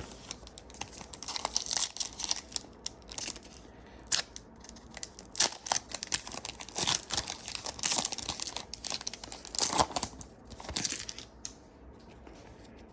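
Foil trading-card pack wrapper being torn open and crinkled, with cards rustling as they are handled. The crackling comes in irregular bursts from about a second in and dies down near the end.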